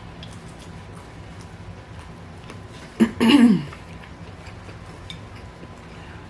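Eating sounds: scattered faint mouth and utensil clicks while a person chews. About three seconds in, a sharp click is followed by a short vocal sound that falls in pitch.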